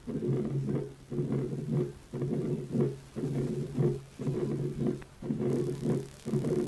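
Breath sounds recorded through a stethoscope: a rapid, regular train of breaths, about one a second, each with low humming tones running through it.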